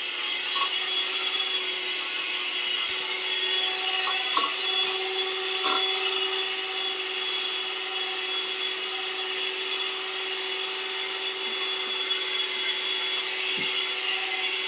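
Electric hand mixer running steadily with an even whir, its beaters working butter cake batter in a stainless steel bowl.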